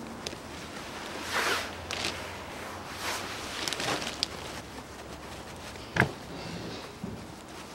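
Hand work on the front of a car engine: scattered rustling and small metal clicks of parts and tools being handled, with one sharp knock about six seconds in.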